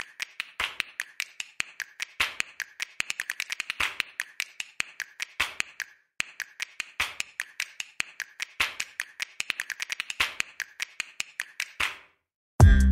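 A long run of sharp, irregular clicks, sometimes in fast flurries and sometimes spaced apart, stopping shortly before the end.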